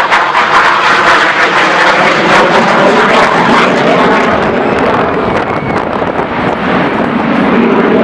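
Jet noise from a Hawker Hunter's Rolls-Royce Avon turbojet as it passes low: a loud, crackling rush that eases a little past the middle and swells again near the end.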